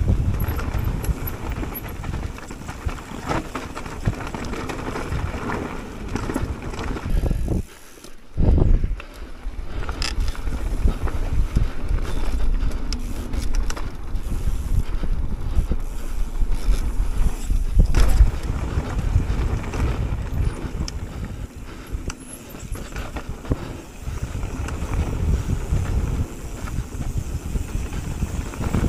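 Mountain bike riding fast down a rough dirt singletrack: tyres rolling over dirt, rocks and timber, with the bike rattling and knocking over bumps, under steady wind rumble on the handlebar camera's microphone.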